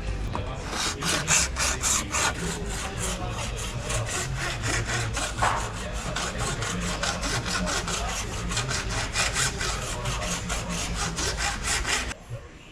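Quick back-and-forth strokes of a hand tool, sawing or scraping on car-body sheet metal, about five strokes a second over a low steady hum. The strokes stop suddenly near the end.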